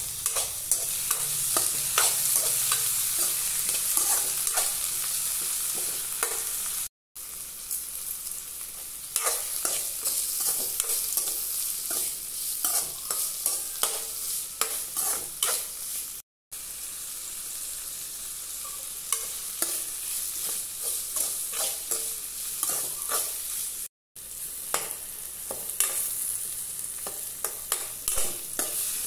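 Chopped carrot, tomato, shallots and garlic sizzling in oil in a metal kadai, with a metal spatula scraping and tapping against the pan as they are stirred. The sound drops out briefly three times.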